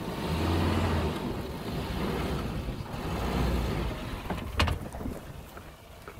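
Suzuki Jimny's 1.5-litre four-cylinder petrol engine pulling under load as the 4x4 crawls over a mound with one wheel lifted, loudest for the first four seconds and then easing off. A single sharp knock sounds about four and a half seconds in.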